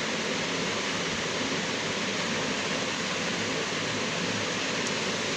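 A steady, even hiss with no changes in level, like rushing water or a noisy background.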